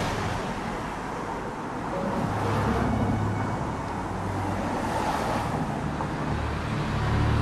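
Road traffic noise with a car engine running close by, an even hiss with a low steady hum underneath.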